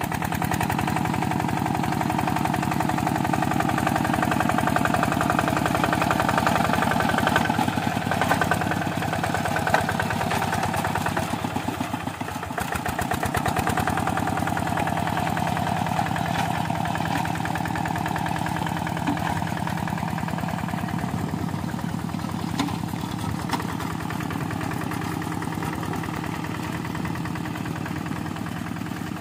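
Two-wheel hand tractor's single-cylinder diesel engine running steadily under load as it ploughs a flooded rice paddy on iron cage wheels, with a short dip in level about twelve seconds in.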